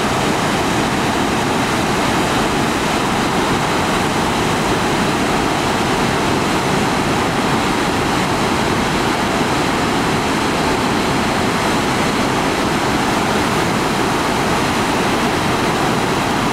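Waterfall in heavy flow crashing into a rocky gorge: a loud, steady rush of falling water.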